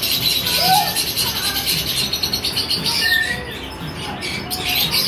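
A flock of lovebirds chattering and chirping all at once, a dense high-pitched din of rapid overlapping calls that eases briefly about three and a half seconds in.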